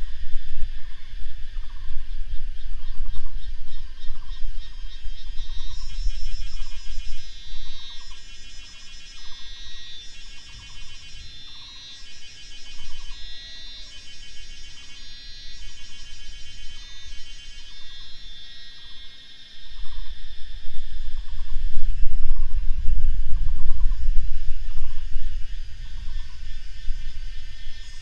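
Mountainside ambience: a short call repeats steadily, about once or twice a second, under a layer of high trills that pulse about once a second through the middle. A gusty low rumble is heavy at the start, drops away in the middle and returns, loudest, in the last third.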